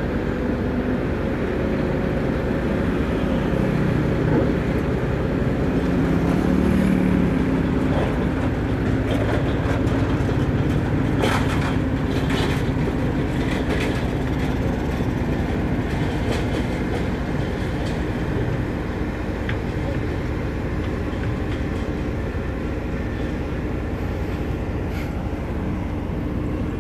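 Sakai SV512D single-drum road roller's diesel engine running steadily as it compacts a dirt road, growing a little louder for a few seconds as it passes close.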